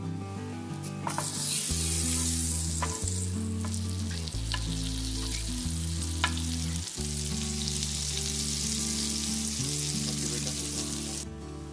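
Butter sizzling and frying in a hot ridged grill pan, a dense hiss that starts about a second in and cuts off suddenly near the end, with a few sharp ticks. Background music with low notes plays under it.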